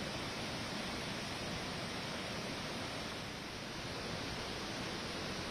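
Steady rushing noise of a swollen, muddy river in flood.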